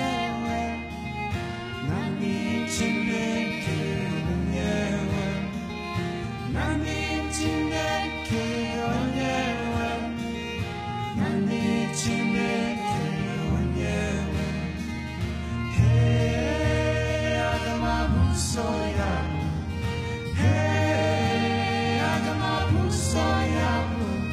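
Gospel song: voices singing over acoustic guitars and cello.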